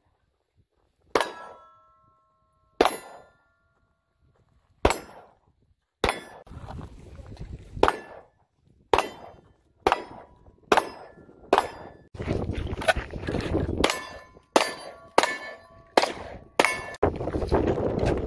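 Pistol shots at steel plate targets, each crack followed by the metallic ring of the struck plate. About seventeen shots, a second or two apart at first and coming faster in the second half.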